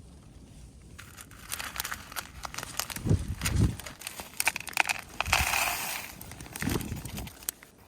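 Crinkly material being handled: rustling and crinkling with many sharp clicks, a denser rustle about five seconds in, and a few dull thumps.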